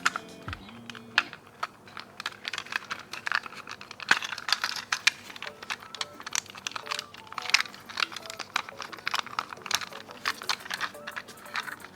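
Toy packaging being handled and opened: quick irregular plastic clicks and taps with crinkling, over soft background music.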